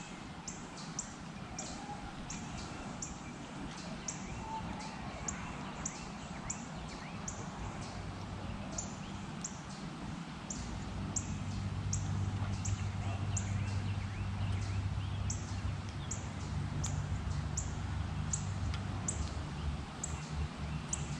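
A bird's short, high chirp repeated evenly, about one and a half times a second. A steady low hum joins about halfway through.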